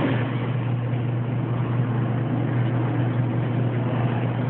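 A steady low-pitched drone with an even hiss over it, unchanging throughout.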